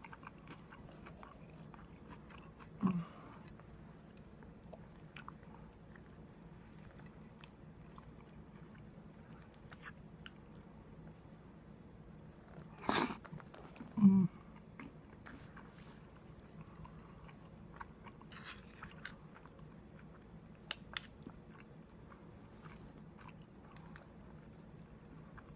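A person chewing a mouthful of cauliflower and cashew curry, with many small soft crunches and clicks. There is a short low knock about three seconds in, and a sharp click followed closely by a low thump about halfway through.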